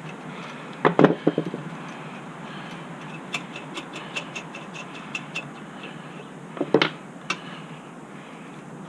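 Hand tools and small metal parts being handled on the engine: a cluster of loud clinks and knocks about a second in, a run of light, sharp ticks in the middle, and another short clatter near seven seconds.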